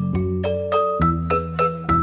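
Background music: a bright, plucky melody of short pitched notes, several a second, over a sustained bass chord, in the manner of marimba or glockenspiel.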